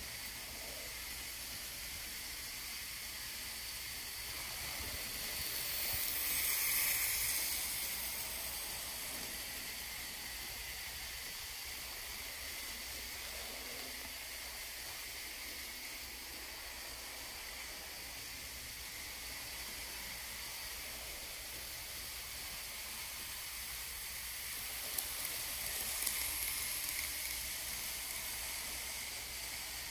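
N scale PA and PB diesel locomotive models running on the layout track: a steady hiss of wheels and motors. It swells about a quarter of the way in, and again near the end as a train comes round the curve close by, with a couple of light clicks.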